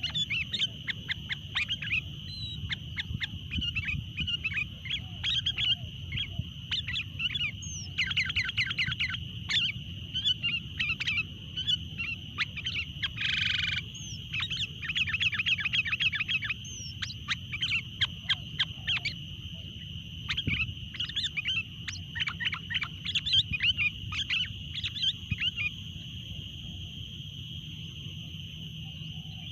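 Sooty-headed bulbuls (kutilang) calling in quick chattering series of short chirps, over a steady high-pitched hum. There is a brief louder rustle about halfway through, and the calls thin out near the end.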